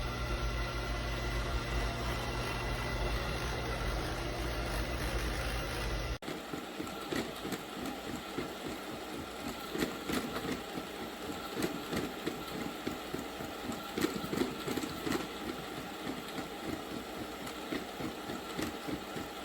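Robot vacuum cleaner running, its motor giving a steady hum with a thin whine. About six seconds in the sound cuts abruptly to a lighter running noise with irregular clicks and rattles.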